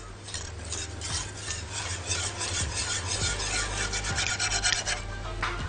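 Wire whisk scraping quickly round and round a pan of butter melting into caramel sauce, stroke after stroke against the pan's bottom and sides.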